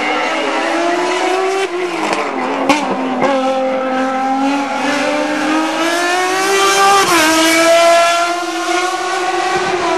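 Racing sports prototype's engine pulling hard uphill, revs climbing steadily then dropping sharply at two upshifts, about two seconds in and about seven seconds in, with a sharp crack just under three seconds in.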